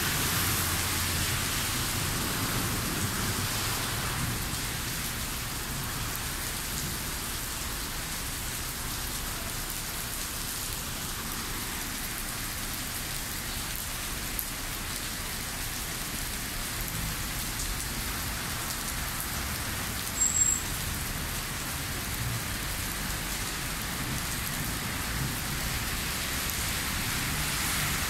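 Heavy rain pouring onto a wet city street, a steady hiss of rain with a low rumble of thunder in the first few seconds. About twenty seconds in there is one brief high chirp.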